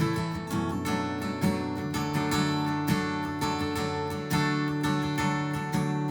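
Acoustic guitar strummed in a steady rhythm: the instrumental intro to a worship song.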